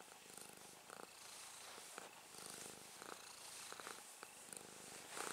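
Domestic cat purring faintly while being stroked, with a few short soft rubbing noises from the hand on its fur close to the microphone.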